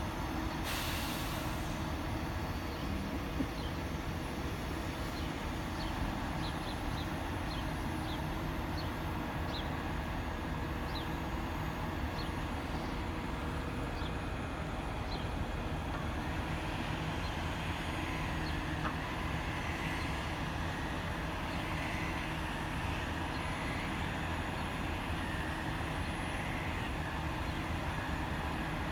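Mobile crane's diesel engine running steadily, a low even rumble. There is a short hiss about a second in, and scattered faint high ticks in the first half.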